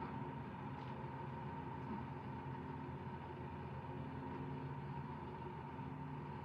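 A steady mechanical hum with a constant high whine, holding evenly throughout.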